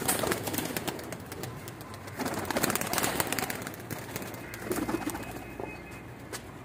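Domestic flying pigeons flapping their wings in three flurries: a sudden one at the start, a louder one about two seconds in and a shorter one near five seconds, with some pigeon cooing.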